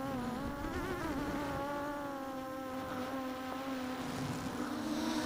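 Makerfire Falcon FPV300 racing quadcopter in flight, its motors and propellers giving a steady buzzing hum. The pitch dips and wobbles briefly about a second in, then holds steady.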